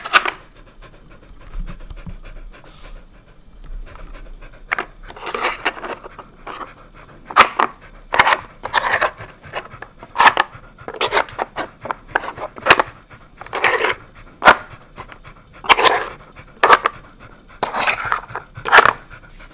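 A Samoyed panting, while the hard plastic sliders and cones of a dog puzzle board clack sharply and irregularly as they are handled, the clacks starting about five seconds in and being the loudest sounds.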